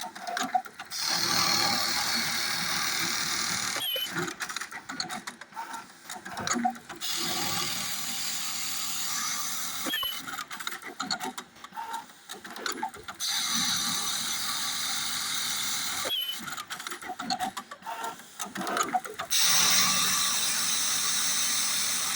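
Industrial sewing machine stitching elastic onto a pant waistband, running steadily in four runs of about three seconds each. Between the runs come short pauses filled with clicks and fabric handling.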